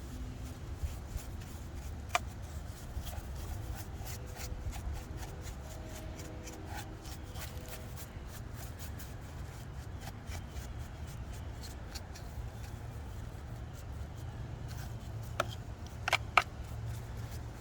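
Scattered light clicks and rustling, like objects being handled, over a steady low rumble, with a few sharper clicks near the end.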